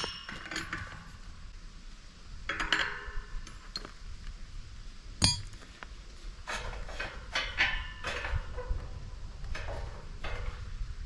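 Metal farm gate and its hinge hardware clinking and clanking as the gate is lifted and adjusted on its post. The sharp knocks ring briefly; the loudest comes about five seconds in, with bursts of smaller clinks before and after it.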